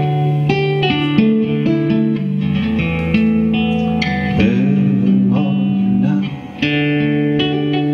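Acoustic guitar playing an instrumental passage of picked notes and chords, with a brief pause a little past six seconds.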